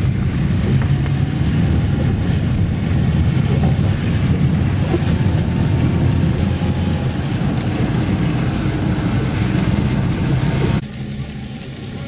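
Inside a car driving on a rain-soaked road: a steady low rumble of tyres on wet tarmac and engine, with rain on the windscreen. The sound drops off suddenly near the end.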